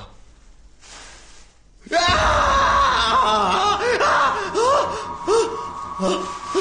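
A young man screams in fright, starting suddenly about two seconds in, then gives a string of shorter panicked cries and gasps.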